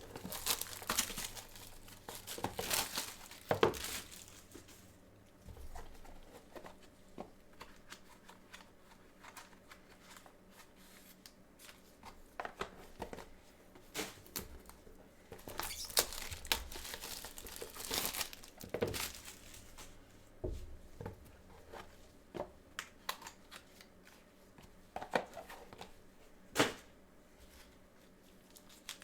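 Wrapping crinkling and tearing as trading-card boxes are torn open, with irregular rustles and sharper crackles throughout, the loudest a few seconds in, around the middle and near the end.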